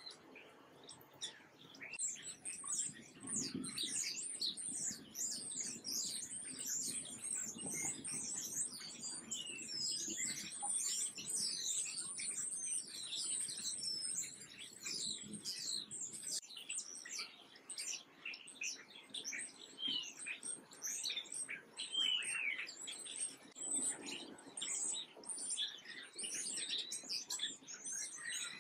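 Small songbirds chirping in a dense stream of quick, high chirps that overlap one another, starting about two seconds in.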